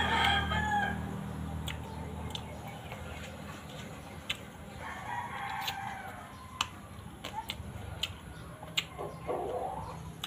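A rooster crowing in the background, once at the start and again about five seconds in, with scattered sharp clicks from eating close by.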